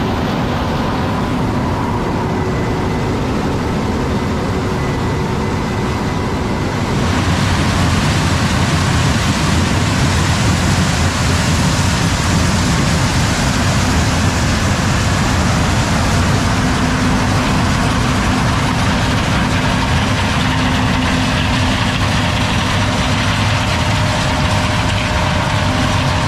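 John Deere S680 combine harvester running steadily as heavy machinery noise. About seven seconds in it grows louder, with a brighter hiss that holds.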